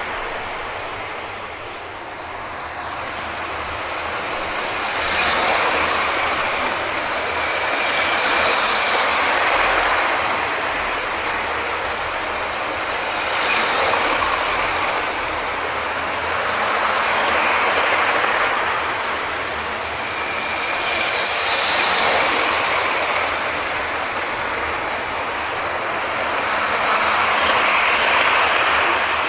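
00 gauge model trains running on carpet-laid track: the whirr of their electric motors and the rattle of their wheels on the rails, swelling as each train passes close and easing as it moves away, several times over. A faint high motor whine rises at some passes.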